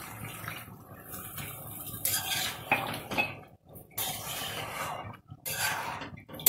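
Metal spatula scraping and stirring in a nonstick kadai of mutton and potato curry thinned with hot water, in several bursts with short pauses and a sharp clink near the end.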